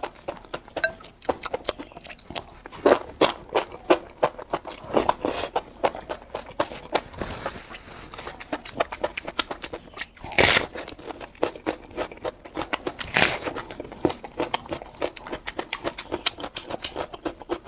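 Close-miked chewing of enoki mushrooms with garlic and onion: rapid wet crunching and mouth clicks, several a second, with a few louder crunches.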